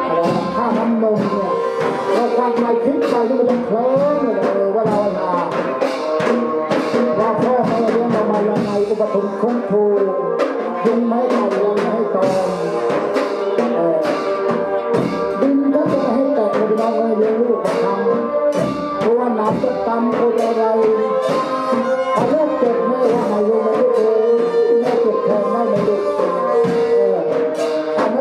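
Music played by brass instruments over a steady drum beat, with held horn notes.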